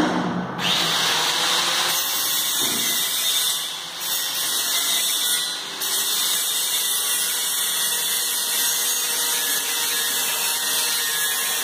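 High-gantry CNC router's motors running with a steady high-pitched whirr as the gantry is jogged along its axes, starting just under a second in and dipping briefly twice, about four and six seconds in.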